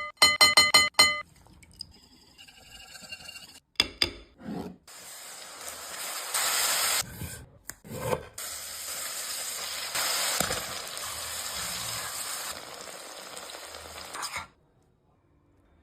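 Okra frying in a pan and being stirred with a spoon, with sizzling and scraping. It opens with a quick run of ringing metal taps, is broken by a few abrupt gaps, and stops sharply near the end.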